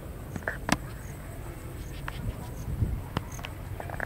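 Short, high insect chirps repeating about once a second, with several sharp clicks and knocks over a low rumble.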